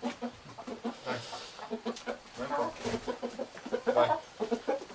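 Domestic chickens clucking: a continuous run of short, low clucks, with a louder cluster about four seconds in.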